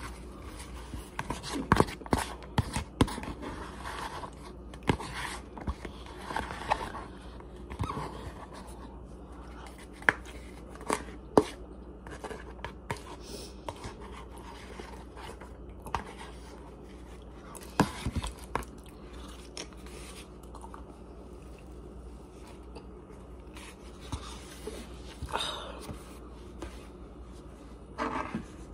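Eating sounds: a utensil scraping and clicking against a bowl of rice, chicken and vegetables, with chewing in between. The clicks and scrapes come irregularly, busiest in the first dozen seconds, with a few sharper knocks around ten and eighteen seconds in, then thinning out.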